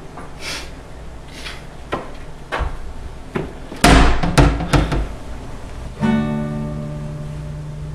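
A few short swishes and knocks, then a burst of loud thuds about four seconds in. About six seconds in, a single acoustic guitar chord is strummed and left ringing, slowly fading.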